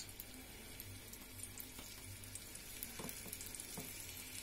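A floured piece of pork leg frying in olive oil in a stainless steel pot: a faint, steady sizzle with scattered small crackles, the oil not yet fully hot.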